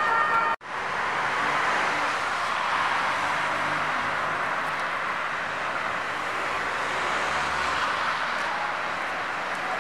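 Steady city street traffic noise. The sound drops out suddenly for a moment less than a second in, then the traffic noise resumes.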